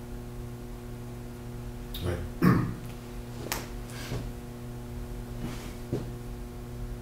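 Steady electrical mains hum in a small room, with one brief louder sound about two and a half seconds in and a few faint clicks.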